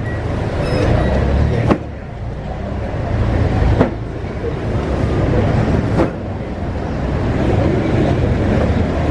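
Steady low rumble of street traffic and a running engine, with three sharp knocks about two seconds apart as cases of drinks are handled at the back of a delivery truck.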